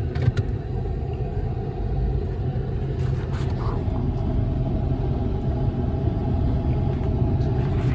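Steady low rumble with a few faint clicks, one just after the start and a couple around three seconds in.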